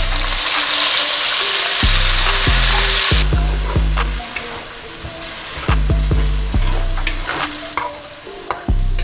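Chopped shallots, garlic, galangal, ginger and lemongrass sizzling in hot oil in a wok as a metal spatula stirs them, with short scrapes and clicks against the pan. The sizzle is loudest for the first three seconds, then settles lower.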